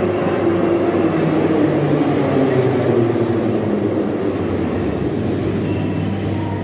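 Ezh3-series metro train (ЕЖ3РУ1) running into the station and slowing to a stop: the wheels rumble on the rails while the traction motors' whine falls steadily in pitch.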